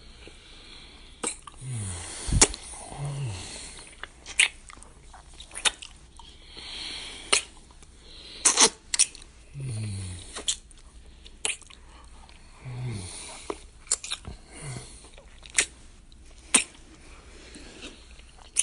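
Close-up kissing: wet lip smacks about once a second, with several short low hums that fall in pitch and soft breathing between them.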